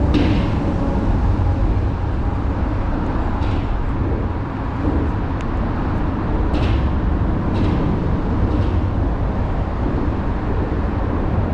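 Boat's outboard motor running steadily as the boat travels, a loud low rumble with a few brief splashy hisses of water against the hull.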